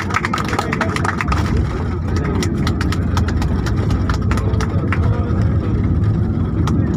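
Airliner cabin noise as the plane rolls along the runway or taxiway after landing: a steady low rumble of engines and wheels, with many short clicks and rattles, thickest in the first two seconds.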